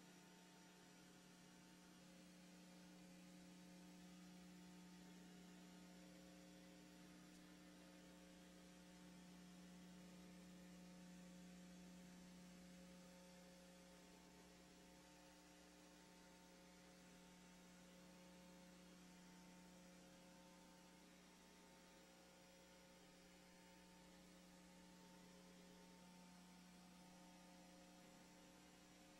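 Near silence: a faint, steady electrical hum with a few higher overtones over light hiss.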